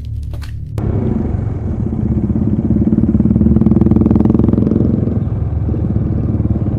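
Background music, then from about a second in the engines of a motorcycle and a scooter running, growing louder through the middle and easing slightly near the end.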